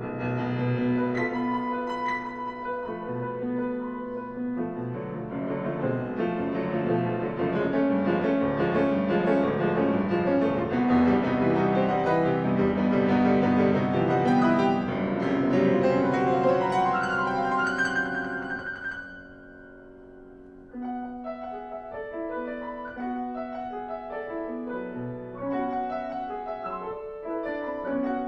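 Grand piano played solo in a classical piece: a dense, loud passage builds up, then breaks off about two-thirds of the way through into a brief lull where the notes ring out. A quieter passage of separate notes follows.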